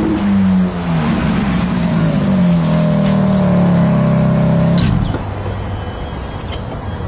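Ferrari F430's V8 engine running at low revs, its note dipping and then rising slightly, before cutting off abruptly about five seconds in.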